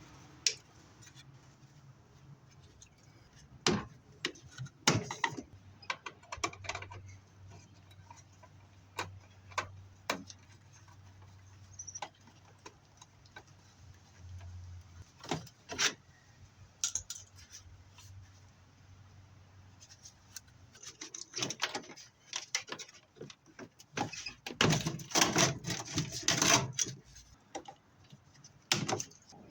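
Scattered metallic clicks, knocks and rattles of sheet-metal furnace parts and wiring being pulled apart and handled, with a denser run of clattering a few seconds before the end.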